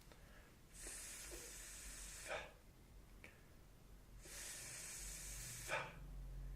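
A person sustaining a voiceless 'th' (/θ/) sound twice, a steady hiss of air blown over the tongue held between the teeth, each lasting about a second and a half. Each one ends in a short burst as the tongue is released, giving the TH sound in slow motion.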